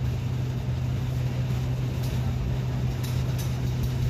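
Steady low mechanical drone with a constant hum, typical of an indoor shooting range's ventilation fans, with a few faint clicks in the second half.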